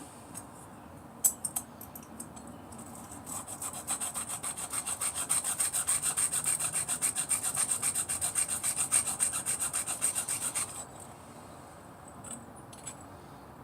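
A metal hair clipper blade is rubbed fast back and forth on an abrasive sharpening surface to restore its edge. The strokes are rapid and even, several a second, and they stop suddenly near the end. A sharp click comes shortly before the strokes begin.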